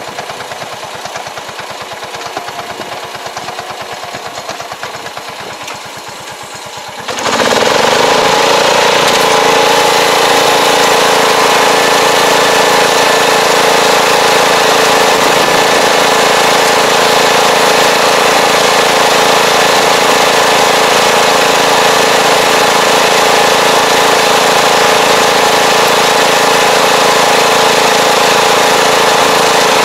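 Tractor engine idling with an even pulse, then about seven seconds in it revs up suddenly and runs steadily and loudly as the tractor pulls the fertilizer applicator across the field.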